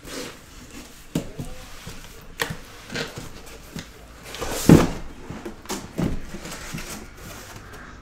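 Sealed cardboard case being opened by hand: knocks, scrapes and rustles of cardboard as the flaps are pulled back. The loudest scrape of cardboard comes about halfway through.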